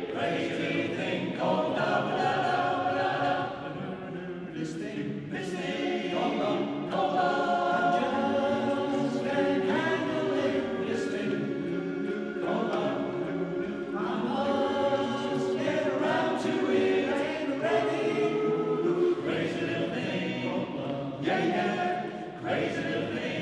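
Men's barbershop chorus singing a cappella in close harmony, holding chords that change every second or two, with a softer passage about four seconds in. The cathedral's stone interior adds reverberation.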